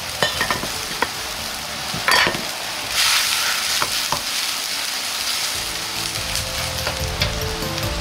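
Cabbage boiling in water in a wok: a steady hiss, with a metal ladle scraping and clinking against the wok several times as the leaves are stirred, the loudest knock about two seconds in.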